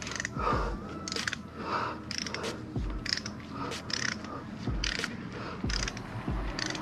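Hand ratchet clicking with irregular metal knocks as it works a bolt on the timing cover and water pump of a Ford 460 V8.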